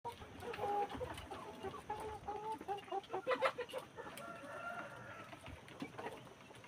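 Chickens clucking, several birds giving short repeated clucks that overlap, busiest in the first few seconds, with scattered sharp clicks among them.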